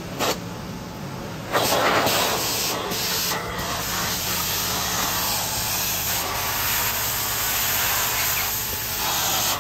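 Truck-mounted hot water extraction cleaner's wand at work, its vacuum running. About a second and a half in, a loud steady hiss of spraying water and suction starts and holds.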